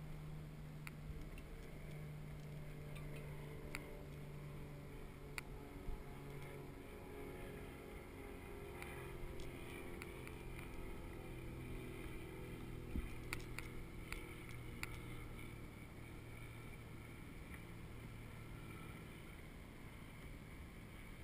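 Boat engine droning at a steady pitch that slowly falls in the second half, with a few sharp clicks and knocks.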